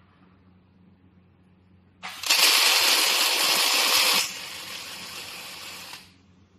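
Automatic scaffolding-crossbar welding machine's arc welding torches striking up about two seconds in and welding with a loud, steady crackling hiss. The hiss drops to a quieter level partway through and cuts off shortly before the end.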